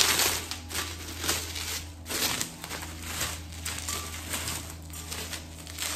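Clear plastic wrapping crinkling and rustling in irregular handfuls as it is pulled off a ribbed glass vase.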